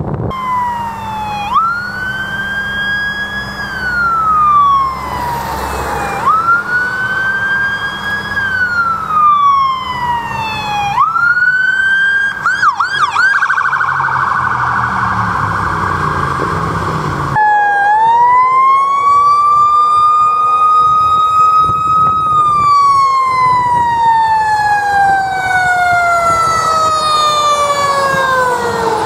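Emergency vehicle sirens wailing, rising, holding and falling in pitch about every five seconds. The sound breaks off abruptly about seventeen seconds in, and a second siren follows with one long wail that rises, holds and then slides slowly down over several seconds.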